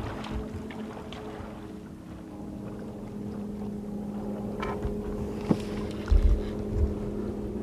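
A boat's motor running with a steady hum. A sharp click about five and a half seconds in, and low thumps of wind on the microphone shortly after.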